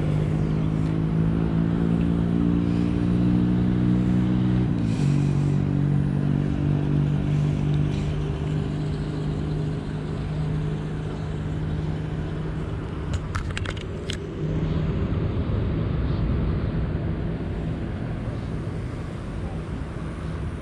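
A steady engine drone runs throughout, its pitch stepping down about five seconds in. A few sharp clicks come about thirteen seconds in.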